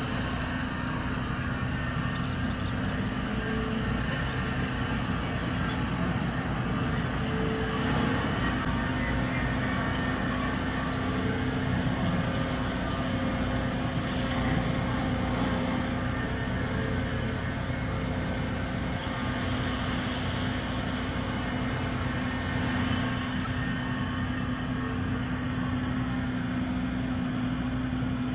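Diesel engines of heavy earthmoving machinery running steadily, with a constant low drone and a few faint higher squeaks and whines over it.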